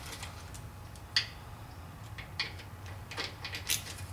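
Metal clicks of a socket wrench working the nuts on a VW Beetle's oil strainer plate to loosen them: one sharp click about a second in, then a few lighter ticks near the end.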